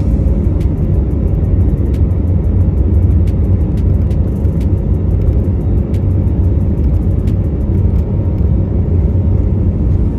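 Airbus A321neo cabin noise while taxiing: a loud, steady low rumble from the engines and rolling airframe, with frequent light clicks and rattles throughout.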